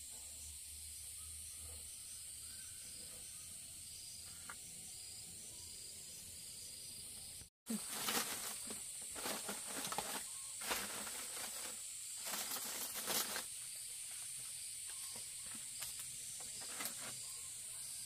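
Faint, steady high-pitched insect chorus. After a break about eight seconds in, scattered rustles and light taps join it.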